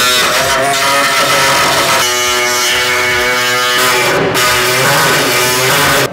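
Loud backing music with distorted electric guitar, its chords changing about two seconds in and again near four seconds.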